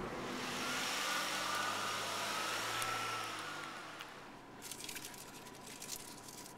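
A car passes close and drives off, its engine and tyre noise loud for about four seconds and then fading. Then a couple of seconds of light high clicking and jingling, a dog's metal collar tags being handled.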